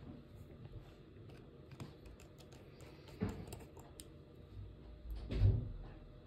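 Scattered light clicks and taps, with two louder, duller thumps about three seconds and five and a half seconds in.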